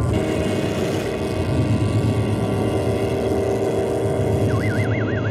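Cartoon sound effect of an artificial earthquake: a loud, steady low rumble with a rushing hiss that starts suddenly. Near the end a warbling electronic tone sets in, swinging up and down about four times a second.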